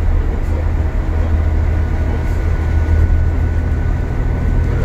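Cabin noise aboard an Alexander Dennis Enviro400 MMC double-decker bus on the move: a steady low drone of the diesel engine and road noise, with a faint thin whine.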